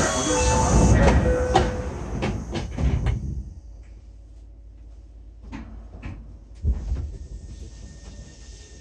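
Subway car's sliding doors closing: a burst of hissing air with clattering knocks for about the first three seconds, then a quiet car with a few single clicks.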